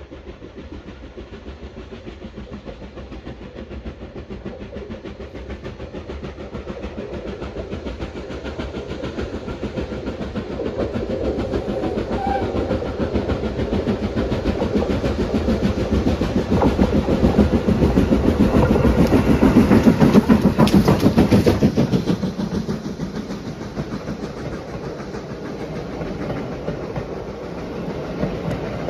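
A steam locomotive pulling coaches approaches round a curve with a fast, steady rhythm of exhaust beats. It grows louder until the engine passes close, about twenty seconds in, and then the coaches roll past.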